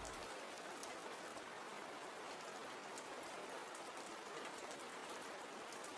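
Soft, steady rain falling: a faint, even hiss with light drop ticks.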